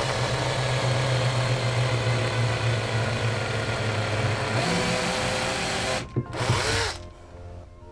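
Electric drill boring a pilot hole through a wooden guide block into wood. The motor runs steadily under load, and its pitch rises about four and a half seconds in. It stops about six seconds in, runs again briefly and stops.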